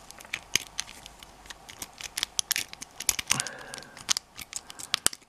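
Metal jiggle key being worked back and forth in a small wafer lock: an irregular run of light metallic clicks and rattles. The key is not yet turning the lock.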